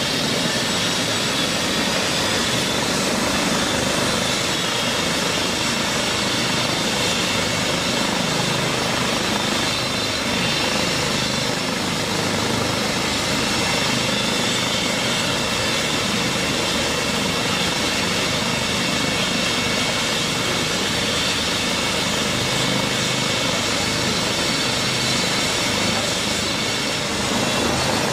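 Trauma helicopter running on the ground with its rotor turning: a steady rush of rotor and turbine noise with a faint high whine.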